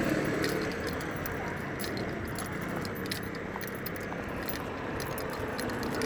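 Steady background noise with faint small clicks and rattles now and then, no speech.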